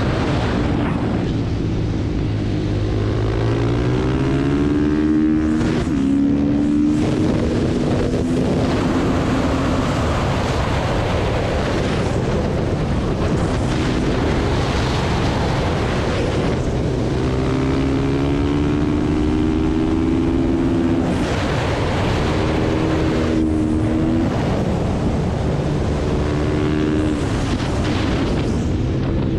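Supermoto motorcycle engine at race pace, revving up through the gears: the pitch climbs in each gear and steps down at each upshift, twice, easing off into the corners in between, over a steady rush of wind.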